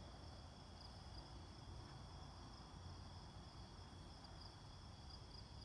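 Faint, steady chorus of insects in the woods: a continuous high trill with no break.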